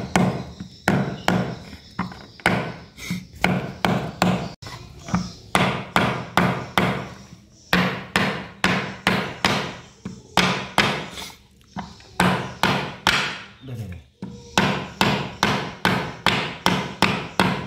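Repeated mallet blows on a metal drift rod, driving new parts into an aluminium motorcycle water-pump housing. The sharp strikes come at a steady rate of about one and a half to two a second, with a few short pauses.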